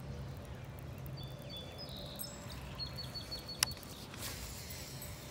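Small birds chirping over steady outdoor background noise, one giving a quick run of about six short high notes. A single sharp click sounds about three and a half seconds in.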